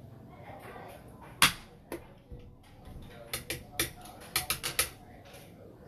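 Sharp clacks of xiangqi pieces set down on a wooden board and the click of a chess clock being pressed: one loud clack about a second and a half in, then a quick run of lighter clicks around the middle and again near the end.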